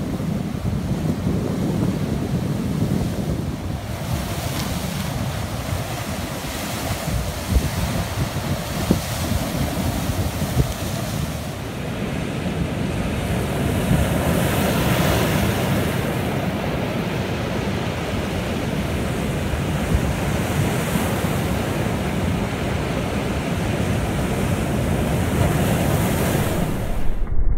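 Rough sea with waves breaking and crashing against a rock breakwater, the surf swelling louder and easing again. Strong wind buffets the microphone with a low rumble.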